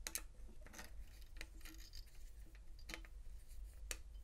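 Faint, scattered metallic clicks and ticks from a screwdriver turning the fixing screw that secures the M1 clamp on a key cutting machine.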